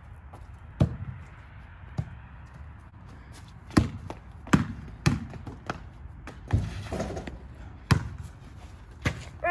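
A basketball bounced on an asphalt driveway: about eight sharp, separate bounces at uneven spacing, the loudest about four and a half seconds in.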